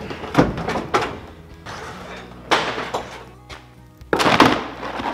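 Old floor covering being torn out of a truck cab and thrown onto a concrete floor: a few loud thuds and rustles, the biggest about half a second in and near the end. Background music plays throughout.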